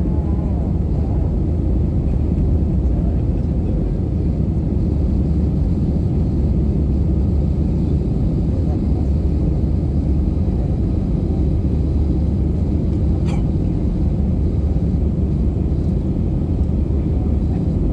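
Steady low roar of an Airbus A320's engines and rushing airflow, heard inside the passenger cabin during the climb after takeoff. A single short click about thirteen seconds in.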